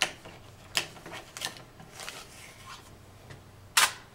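Small screws and drive parts being handled: a few light clicks and clatters as the screws are picked up from a desk, then one sharper clack near the end as a part is set against the Blu-ray drive.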